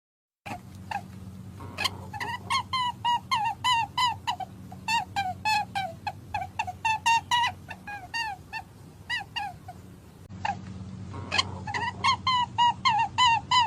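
An animal chirping: a fast series of short, high squeaks, each falling in pitch, about four a second. The series breaks off briefly about ten seconds in and starts again.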